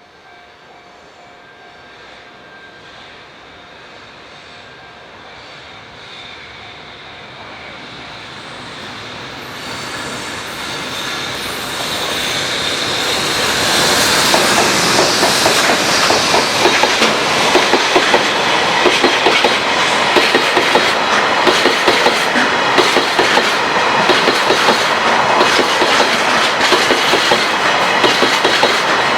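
A freight train hauled by a JR Freight EH500 electric locomotive approaches, growing steadily louder for about fourteen seconds. It then passes close by with a rapid clickety-clack of wagon wheels over the rail joints.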